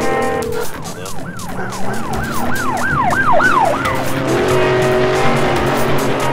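Siren sound effect in an edited intro: a quick run of about ten wailing up-and-down sweeps, then a rushing whoosh with a steady low tone under it as the logo comes up.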